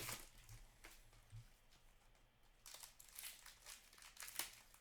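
Faint rustling and crinkling of trading cards and pack wrappers being handled, a few brief rustles at first, then a denser patch after a short lull.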